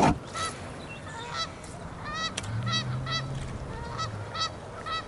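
Geese honking: a run of about ten short calls, with a low steady hum under the middle of them.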